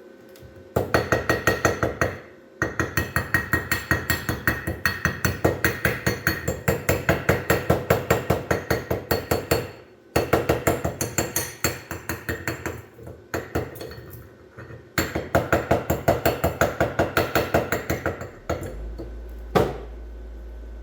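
Rapid hammer blows on metal, about five or six strikes a second, in runs of several seconds with short pauses between. A steady low hum starts near the end.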